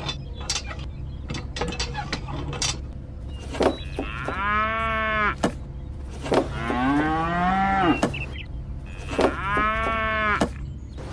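A cow mooing three times, each moo about a second long and rising then falling in pitch, after a run of sharp clicks in the first few seconds. A steady low hum runs underneath.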